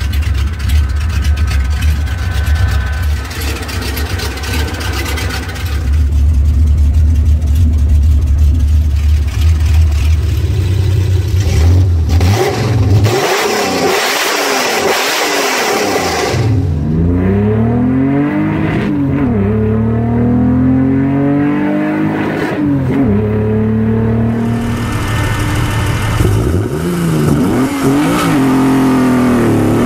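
BMW E30's M20 inline-six on individual throttle bodies idling steadily with a deep rumble while the throttle bodies are being synchronised. About twelve seconds in there is a loud rush of intake noise, and after that the engine's pitch climbs and drops again and again as the car is driven hard through the gears.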